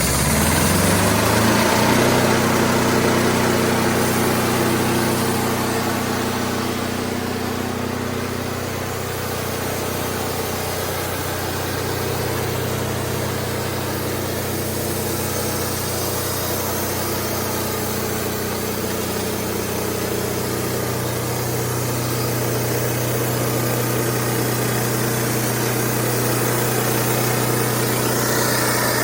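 Diesel engine of a Wood-Mizer LT15 band sawmill revving up over the first couple of seconds, then running steadily at speed.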